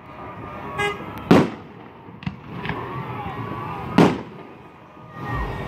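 Aerial firework shells bursting: two loud booms, about a second and a half in and again at four seconds, with a couple of smaller pops between them.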